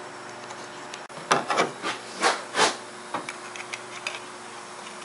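Flange-and-punch tool stepping the edge of sheet steel: five short bursts in quick succession over about a second and a half, then a few faint ticks as it is repositioned.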